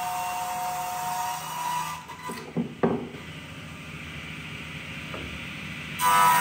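Table saw ripping poplar into strips, running with a steady whine. Partway through the cut ends and a few sharp wooden knocks follow as the pieces are handled; near the end the saw bites into the next board, louder again.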